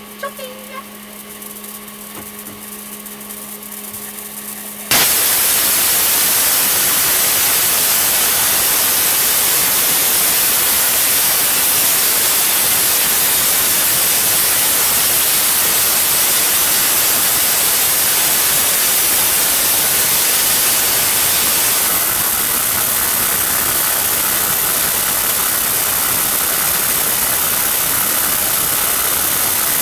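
Tesla coil firing long arcs, a loud, steady rushing spark noise that starts abruptly about five seconds in, after a few seconds of low steady hum. The spark noise shifts slightly in tone about three-quarters of the way through.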